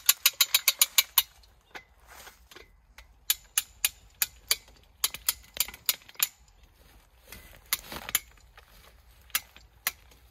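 Sharp metal ratchet clicks from a hand-worked tree pusher being pumped against a trunk. A quick run of about eight clicks comes first, then several shorter runs of clicks with pauses between.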